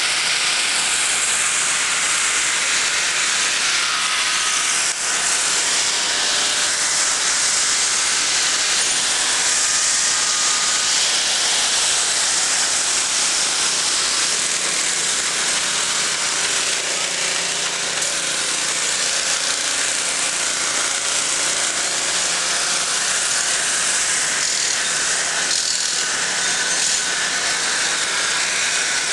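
Steady hissing mechanical din of a race-car garage area, with portable generators and compressed-air equipment running and no single sound standing out.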